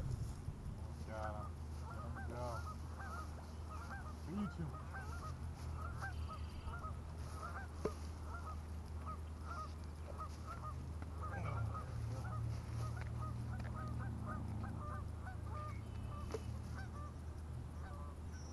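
A flock of geese honking, many short calls overlapping several times a second, over a steady low hum.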